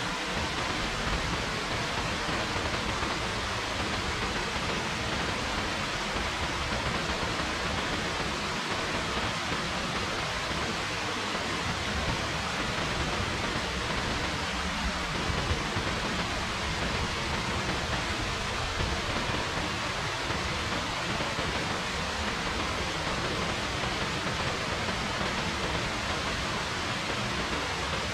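Steady rain falling, heard as a constant even hiss.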